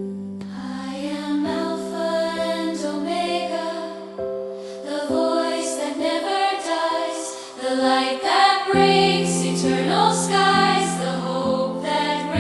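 Slow, sustained worship music with held chords and a layered melody, no lyrics sung; the low bass note drops out for a few seconds near the middle and returns.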